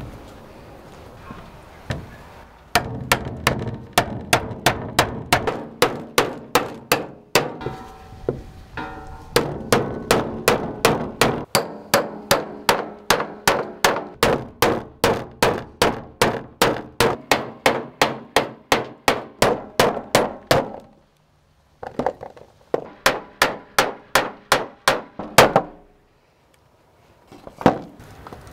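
Rapid rhythmic knocking, about three sharp strikes a second, in several runs with short pauses between them.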